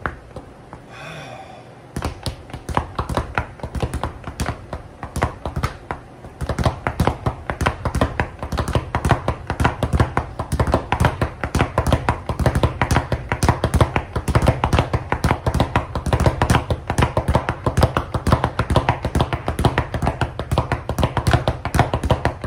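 Speed bag punched in a fast, steady rhythm, rebounding against its overhead rebound board in a rapid rattle of taps. The taps start about two seconds in and grow louder and denser about six seconds in.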